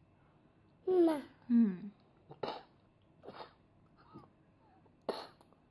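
Short non-word vocal sounds: two brief calls with falling pitch about a second in, then several short breathy sounds spaced about a second apart.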